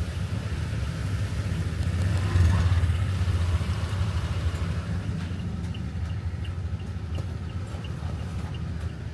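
Car engine and road noise heard from inside the cabin, a steady low rumble that swells slightly about two and a half seconds in.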